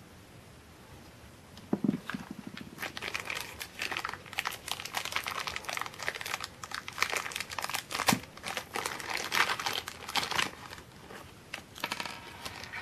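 A soft knock about two seconds in, then thin plastic packaging crinkling and crackling in the hands, on and off for most of the rest.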